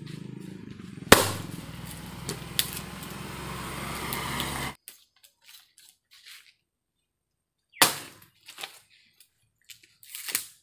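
An axe chopping into a firewood log: one sharp strike about a second in and another about eight seconds in, with lighter knocks of wood near the end.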